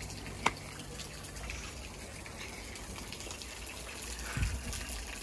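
Creek water rushing steadily, with a sharp click about half a second in and a low thump near the end.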